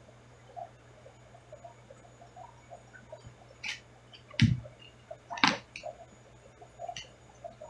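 Aquarium sound heard through a camera submerged in the tank: a steady low hum under faint, frequent small pops and ticks in the water. About halfway through come three sharp knocks, the two loudest about a second apart.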